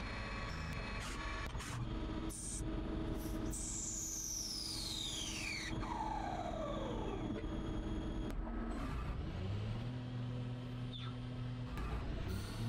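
CNC lathe machine sounds: a high whine falls steadily in pitch over about four seconds as a spindle spins down, then a low hum rises and settles to a steady pitch as a spindle spins back up.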